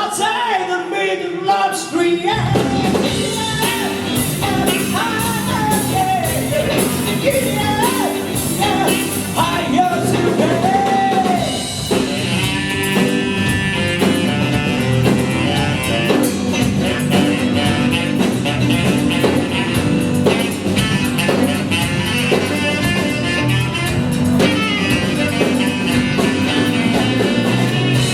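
Live band playing a soul-blues number without vocals: a lead line bends up and down over bass and drums for the first dozen seconds, then fuller sustained chords fill out the sound.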